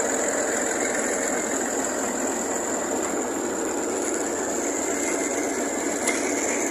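Massey Ferguson tractor's diesel engine running steadily at low revs, driving a tubewell pump through a long flat belt.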